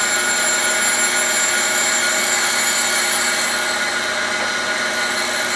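Cylindrical grinder running steadily on a steel shaft: a constant hiss with several steady whining tones from the spinning grinding wheel and its drive.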